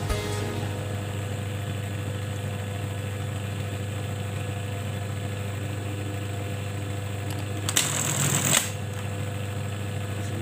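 Brother industrial button-sewing machine: its motor hums steadily, and about eight seconds in it runs one rapid stitching cycle, a quick clatter of needle strokes lasting just under a second.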